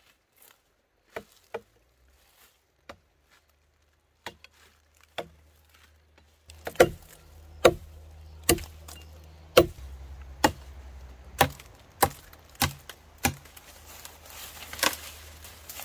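A tool striking hard: a few scattered knocks, then from about halfway a steady series of loud blows, roughly one a second, over a faint low hum.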